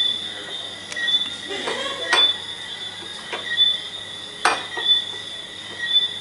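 A glass bottle clinks against the rims of stemmed glasses as a drink is poured into a row of them, five clinks about a second apart. A faint, high chirp repeats steadily underneath.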